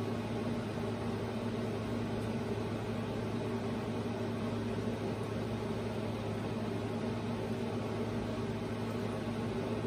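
Steady background hum and hiss from a running room appliance, with no knocks or handling sounds.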